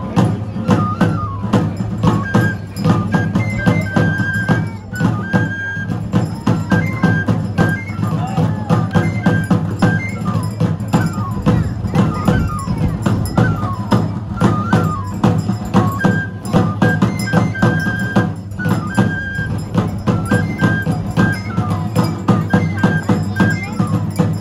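Traditional festival music: a high melody repeating in short phrases with falling runs, over steady, dense drumming on double-headed drums.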